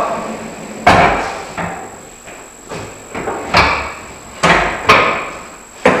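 A series of sharp clunks and knocks, six or seven spread unevenly over a few seconds, as a pre-sweeper attachment is slid up onto the front Quick Connect mount of a Hako B175R floor cleaning machine.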